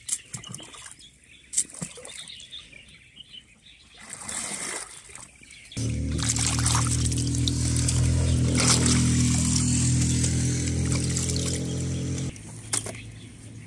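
Small splashes and trickling of shallow muddy water as tubers are pulled out of it by hand. About six seconds in, a steady low hum with several tones starts abruptly, is the loudest sound, and cuts off sharply about six seconds later.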